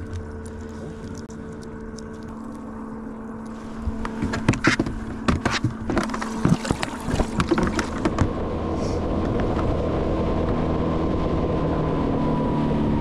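A steady hum, then a run of knocks and clunks from about 4 to 8 seconds as a bass is dropped into the boat's livewell and the lid is handled. From about 8 seconds a fishing boat's outboard motor runs at speed, with a steady rush of water and wind that grows louder.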